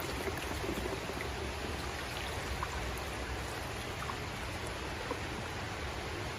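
Creek water running steadily, a continuous rushing wash with a few faint small ticks through it.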